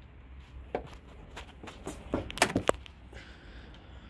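Scattered light clicks and knocks from a key being worked in a van's key-operated bonnet lock, with a short cluster of them about two and a half seconds in.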